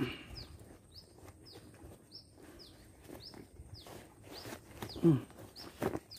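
A bird repeating short high chirps, each falling in pitch, about twice a second. About five seconds in, a brief louder low sound falls in pitch, with a few faint clicks of rustling around it.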